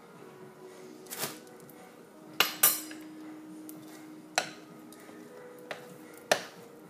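A spoon clinking against a mixing container as cacao powder is spooned into the mix: about six sharp knocks, some leaving a short ringing tone.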